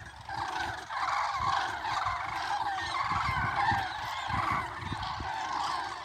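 A large flock of common cranes calling together, a dense chorus of many overlapping trumpeting calls, as birds take off from the field after being disturbed.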